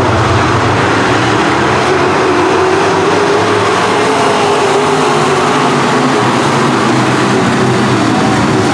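A pack of USRA B-Modified dirt-track race cars' V8 engines running hard together as the field circles the track: a loud, steady blend of engine notes that drift slightly up and down.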